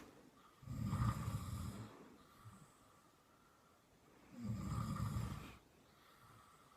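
A sleeping person snoring: two snores about three and a half seconds apart, each a low buzz lasting just over a second.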